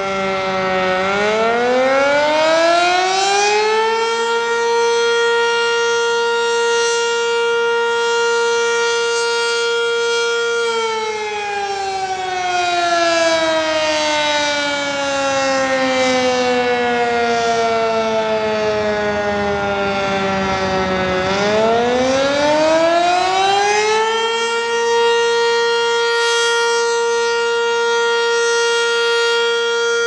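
Sentry 10V outdoor warning siren sounding a wail on test: its pitch climbs over about three seconds, holds steady for several seconds, slides slowly down over about ten seconds, then climbs and holds again before starting to fall near the end.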